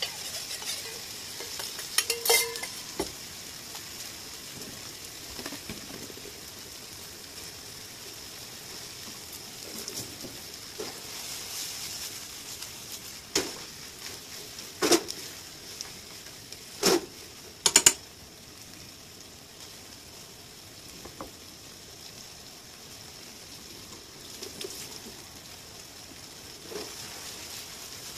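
Stir-fry of pork, bamboo shoots and rape blossoms sizzling with a steady hiss in a frying pan as sauce is poured in and the food is stirred and tossed. A handful of sharp clinks of utensils on the metal bowl and pan stand out, one about two seconds in and several between about 13 and 18 seconds.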